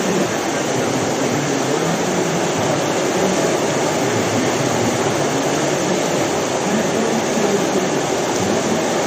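Whitewater rushing through an artificial canoe slalom channel: a steady, even noise of churning rapids.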